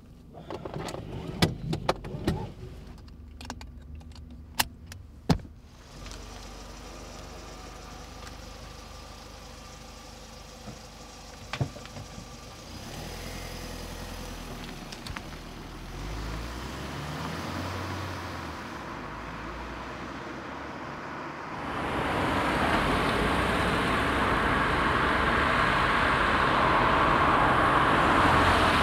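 Car sounds: a run of sharp clicks and clunks in the first few seconds, then a car engine running steadily, with a louder rush of engine and road noise coming in about two-thirds through.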